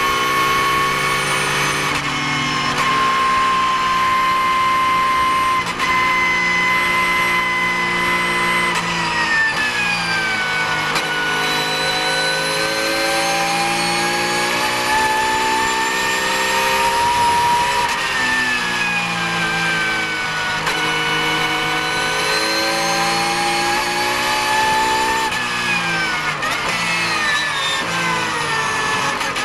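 Porsche 991 GT3 Cup race car's flat-six engine heard from inside the cockpit, running hard: its note climbs and drops with gear changes, the pitch falling sharply about ten seconds in and again near eighteen seconds. Near the end the note falls in a quick series of steps as the car brakes and downshifts.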